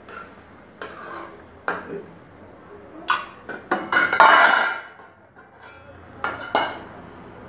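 A string of sharp clinks and clatters, like dishes and utensils being handled, with a louder, longer clatter about four seconds in.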